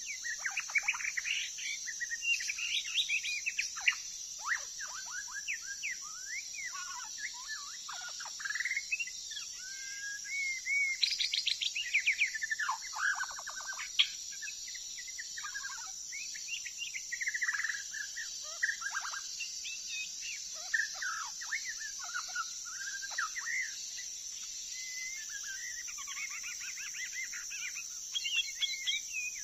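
White-rumped shama singing a long, varied song of rapid whistles, pitch sweeps and trills, phrase after phrase, over a steady high-pitched drone.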